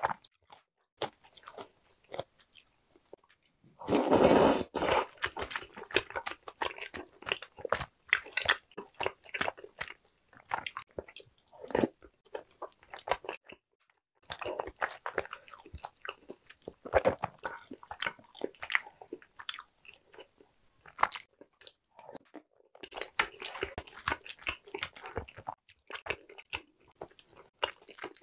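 A person chewing and biting mouthfuls of egg tteokbokki (boiled eggs in spicy rice-cake sauce), with wet mouth clicks and smacks coming in irregular runs. A louder noisy burst about a second long comes about four seconds in.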